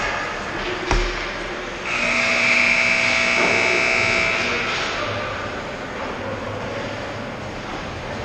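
A sharp knock about a second in, then a loud, steady horn tone from the ice rink's arena horn, held for about three seconds over the rink's background noise.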